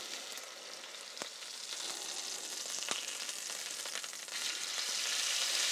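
Chicken thigh frying skin-side down in oil in a steel pan at medium-high heat: a steady sizzle with two faint clicks, growing louder about four and a half seconds in.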